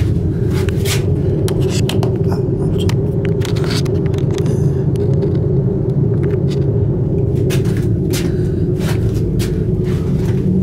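Steady low rumble inside a moving aerial ropeway gondola cabin, with scattered light clicks and knocks.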